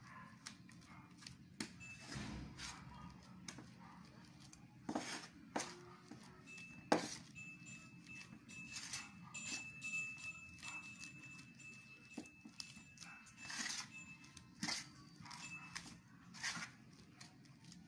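Metal utensil stirring a wet flour mixture in a stainless-steel bowl: irregular scrapes and clinks against the metal, the sharpest clink about seven seconds in.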